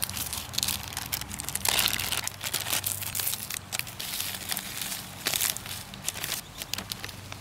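Thin clear plastic beverage bag and foil packets crinkling irregularly as they are handled, the bag opened and instant coffee tipped into it.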